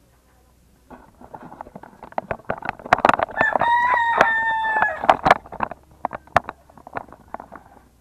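A rooster crowing once, one long held call about midway, amid many short sharp clicks and knocks before and after it.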